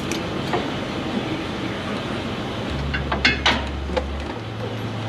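Hand tools clinking and clicking against steel steering parts under a pickup truck, a few sharp taps over steady shop background noise, with a low hum coming in about halfway.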